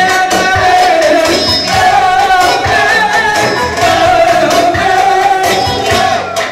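Live Turkish dance music played loud: a singer on a microphone over a held, wavering melody line and a steady drum beat.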